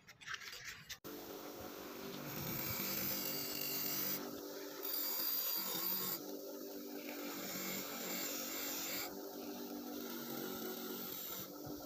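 Electric bench grinder running, its wheel grinding rust off a steel axe head held against it. It makes a steady abrasive hiss over the motor's hum, starting about a second in and easing briefly every few seconds as the pressure on the wheel changes.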